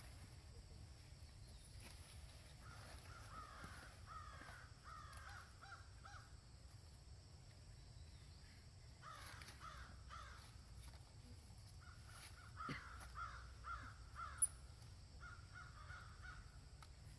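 Faint runs of short, repeated animal calls, several in quick succession each time, coming and going. There is one sharp click near the end.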